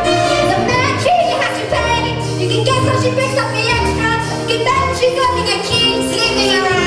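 A woman singing over orchestral accompaniment in a live stage musical.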